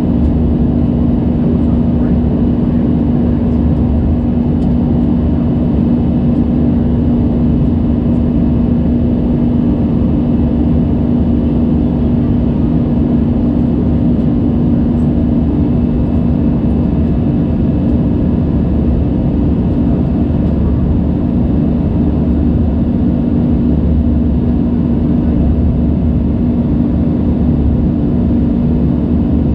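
Airbus A320's turbofan engines running at climb power after takeoff, heard inside the cabin beside the wing: a loud, steady drone with a strong hum under it.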